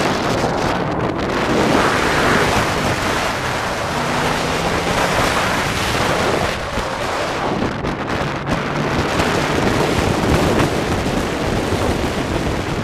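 Heavy wind buffeting on a bonnet-mounted camera microphone as the drift car runs through a corner, with its engine faintly underneath.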